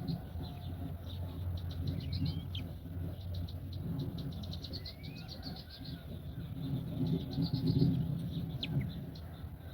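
Birds chirping in quick repeated trills, with a few short gliding whistled calls about two and five seconds in, over a steady low rumble.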